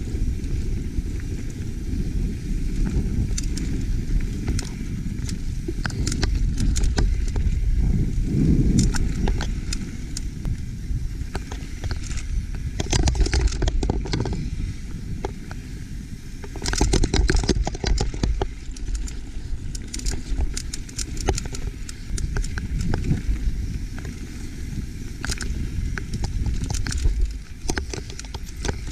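YT Capra mountain bike riding down rocky dirt singletrack: tyres crunching over gravel and rocks with constant clicks and rattles from the bike, over a steady low rumble of wind on the microphone. Two louder rushes of noise come a little past halfway.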